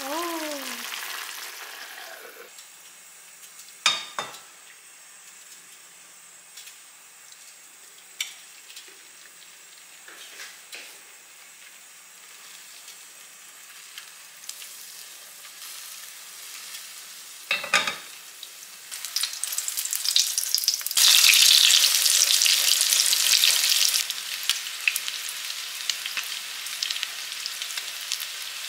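Beaten eggs with chopped green onion frying in oil in a pan, sizzling. The sizzle is loudest for a few seconds past the middle. A couple of sharp knocks of cookware come earlier.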